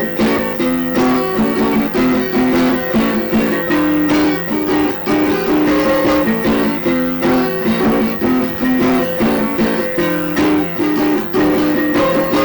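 Instrumental music led by guitar, a steady rhythmic pattern of repeated plucked or strummed notes.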